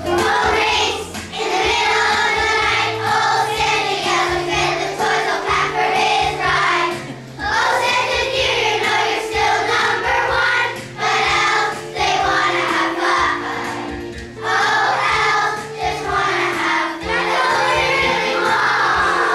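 A choir of young children singing together in phrases over a steady instrumental accompaniment with held low notes.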